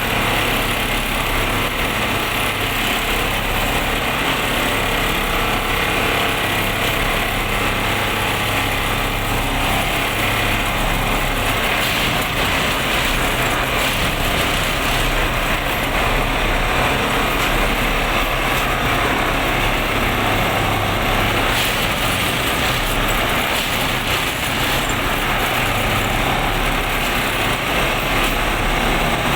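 PCTM machine running steadily: a continuous loud mechanical clatter and hum that stays the same throughout.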